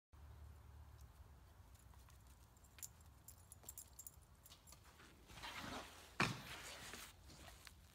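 Faint jingling of a dog's collar tags as it moves about, over a steady low rumble. About six seconds in, a short sharp sound stands out as the loudest moment.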